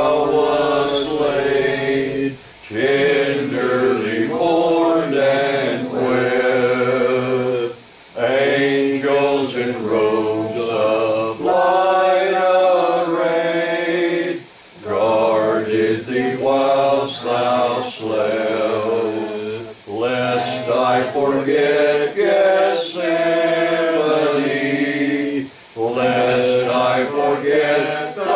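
Congregation singing a hymn a cappella, with no instruments, phrase after phrase with brief pauses for breath between lines.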